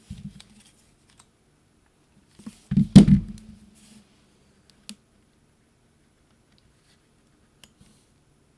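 Hands handling papercraft pieces on a work desk: a few light clicks, and a short cluster of knocks about three seconds in, the loudest sound here.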